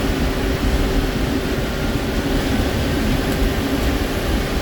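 Ashok Leyland 1616 Super truck's turbocharged diesel engine running steadily under load in top gear, with a low rumble and a faint high turbo whistle over it.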